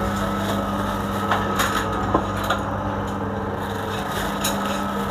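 Plastic bag crinkling over a gloved hand as boiled chicken is torn apart and dropped into a steel bowl, in a string of irregular crackles and clicks. Under it runs a steady low hum.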